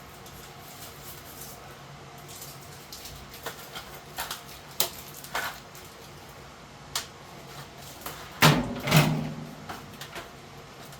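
Scattered clicks and knocks of hand work on a floor vent and its ductwork, with two loud knocks about half a second apart near the end.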